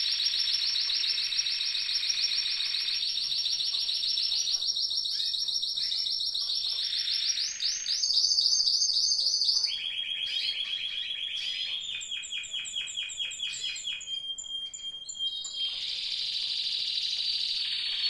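Timbrado español canary singing: a continuous song of rapid rolls and trills that moves to a new phrase every couple of seconds, dropping lower about ten seconds in. It is loudest about eight seconds in.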